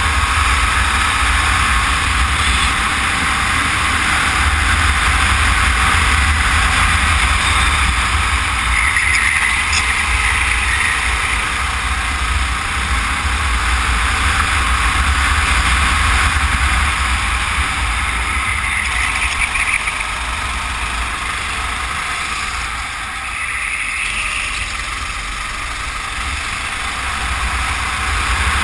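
Go-kart engine running under way, mixed with a heavy, steady rumble of wind on the microphone.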